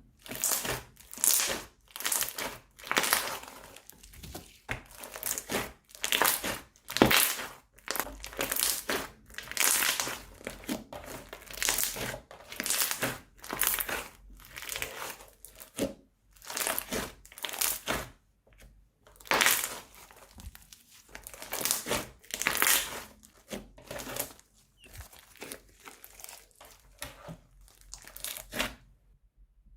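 Slime squeezed through plastic piping bags, crinkling and crackling in a long run of short bursts, roughly one or two a second, that stop shortly before the end.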